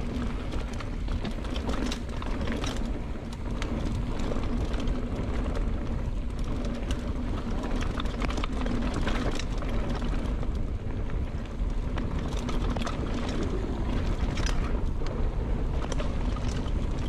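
Mountain bike riding down a dirt flow trail: steady wind rush on the rider's camera microphone and tyres rolling over dirt, with frequent clicks and rattles from the bike over bumps.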